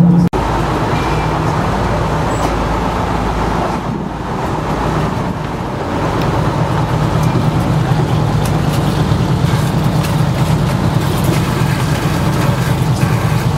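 Fishing boat's engine running steadily, a low hum and rumble with wash and wind noise over it.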